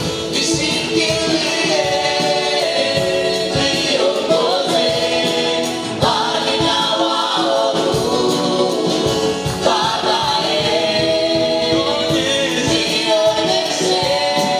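Gospel praise and worship team, men and women, singing together into microphones through PA speakers, holding long notes in harmony.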